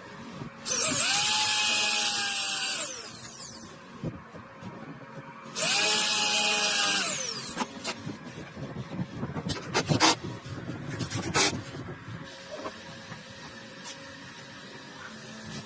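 Handheld power tool run twice on wood, about two seconds each time, its motor tone dropping as it winds down after each run. A few sharp knocks follow.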